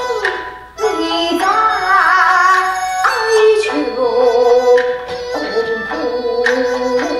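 Kunqu opera accompaniment music: sustained melodic lines, some wavering with vibrato, over held notes. A few sharp percussive strikes land about a second in, at about three seconds and again near the end.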